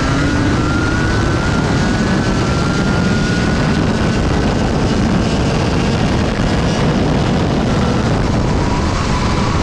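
Junior Rotax kart's 125cc two-stroke engine running at high revs, heard from the kart itself, its pitch climbing slowly along the straight and dropping near the end as the kart slows for a bend. The engine note sits under a thick, steady rushing noise.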